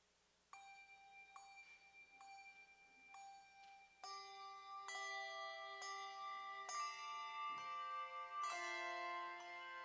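Tuned bells playing a slow tune: single notes ring out about once a second, then about four seconds in the playing turns louder and fuller, several notes sounding together and ringing on.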